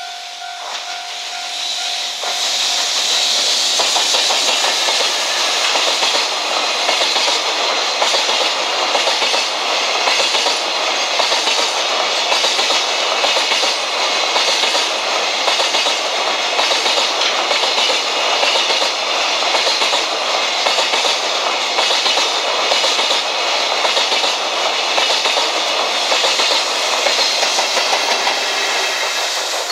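Freight train of flat wagons loaded with long steel rails rolling past close by, hauled and banked by EF210 electric locomotives: a steady, loud rush of wheel and rail noise with clickety-clack that builds over the first two seconds.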